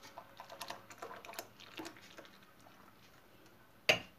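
Thick hot salep poured from a metal pot into a mug: a faint patter of small ticks and drips, then a sharp metallic clank of the pot near the end.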